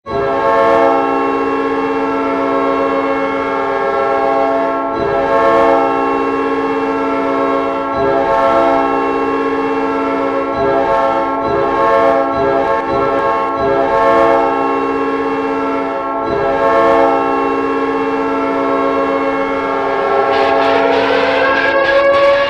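Winnipeg Jets arena goal horn blowing one long, loud blast, a chord of several deep tones held for about twenty seconds. Near the end a rising glide comes in as the horn gives way to music.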